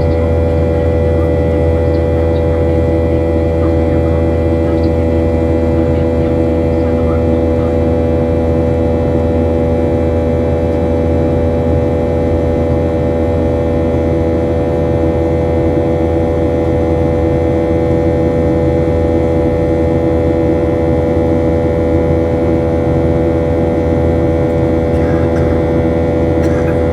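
Boeing 737-800's CFM56-7B jet engines running at a steady, unchanging level: a loud constant drone with several fixed humming tones.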